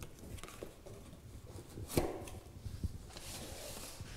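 Cardboard shipping box being handled and opened by hand: scattered light knocks and scuffs, a sharper knock about two seconds in, and rustling near the end.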